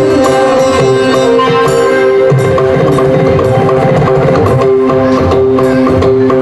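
Kirtan music: hand drums and hand cymbals keep up a busy rhythm over steady held notes, with no voices singing.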